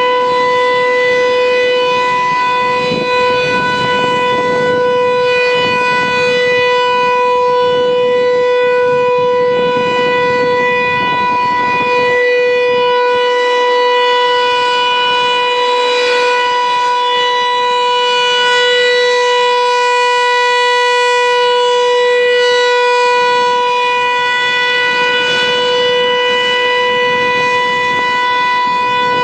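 American Signal T-135 outdoor warning siren sounding a steady tone during a siren test, holding one pitch while its loudness gently swells and fades.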